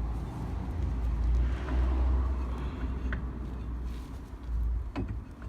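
A couple of light metal knocks as a brake drum is fitted onto the wheel hub, over a steady low rumble.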